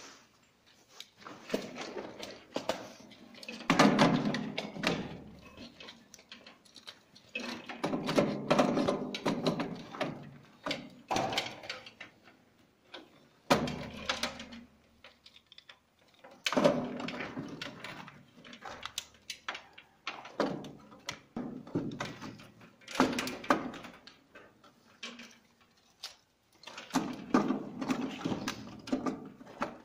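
Plastic miniature circuit breakers clicking and knocking as they are snapped onto the DIN rail of a three-phase distribution board. The sounds come in irregular clusters of handling noise with pauses between.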